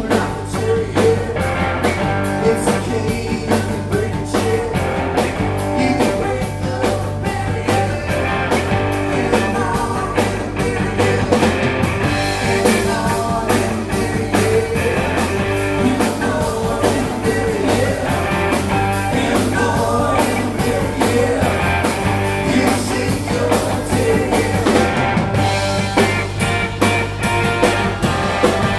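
Live rock band playing a song: electric guitars, electric bass and drum kit, with lead vocals sung into the microphone.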